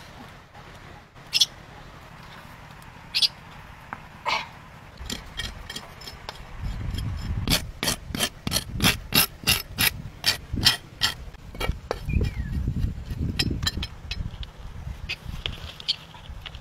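Sharp knocks, a few single ones at first, then a quick run of strikes about three a second through the middle, with low thudding handling noise under them.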